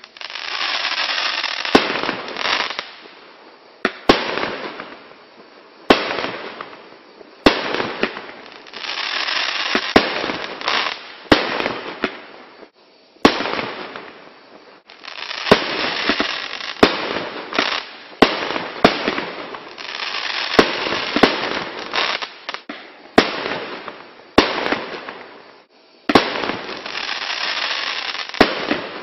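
Cube Fireworks' Voodoo, a multi-shot firework, firing shot after shot. A sharp bang comes about every one to two seconds, and between the bangs are long hissing, crackling stretches of one to three seconds.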